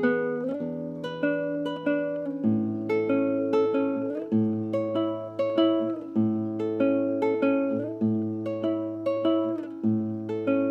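Acoustic guitar being fingerpicked: a steady stream of plucked notes, about two or three a second, over a bass note that changes every two seconds or so.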